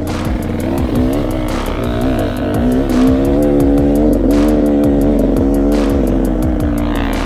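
Off-road motorcycle engine revving up and down as the bike is ridden, its pitch climbing and dropping again several times.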